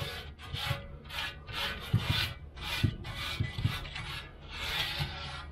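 Gloved hand rubbing rust-dissolver gel into the inside of a rusty steel valve cover, in a rhythm of wet rubbing strokes about two a second, with a few soft knocks.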